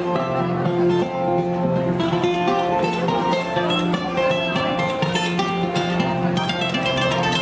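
Instrumental music: a plucked-string melody over a sustained low note.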